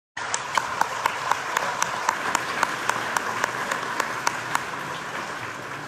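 Audience applauding, with one nearby pair of hands clapping sharply about four times a second. The close claps stop a little over a second before the end while the applause carries on.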